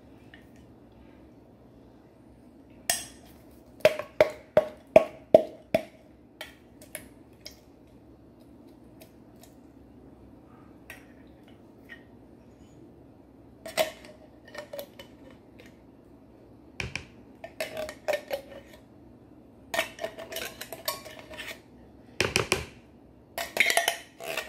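A metal spoon clinking and tapping against a plastic mixing bowl: a quick run of about six taps a few seconds in, then scattered clinks and scrapes.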